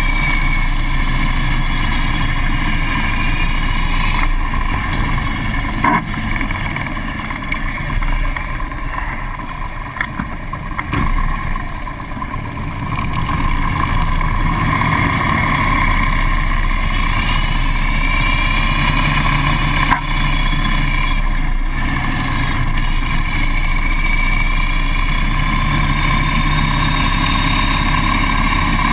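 Harley-Davidson police motorcycle's V-twin engine running at low speed, heard from a camera mounted on the bike, its pitch rising and falling as the throttle is worked.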